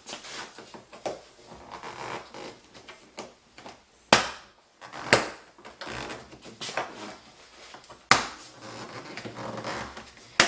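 Plastic interior trim being worked loose from a car body, with scraping and rustling and four sharp snaps of retaining clips popping free as the panel is pried off.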